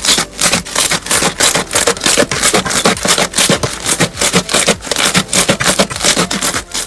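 Slime being squeezed and worked by hand, a rapid, uneven run of crackling clicks and pops.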